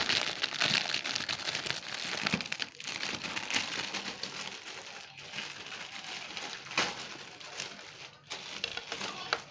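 Finely chopped marinated chicken sizzling on a hot tawa griddle: a steady frying hiss full of crackles, with a few sharper pops.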